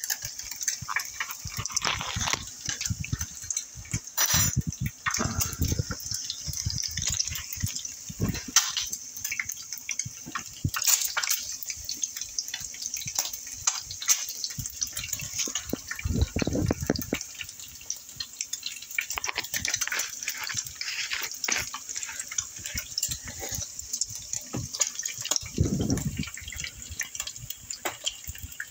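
Eggs frying in hot oil in a nonstick pan, with a steady sizzle full of small crackles and pops. Two brief low rumbles come about halfway and near the end.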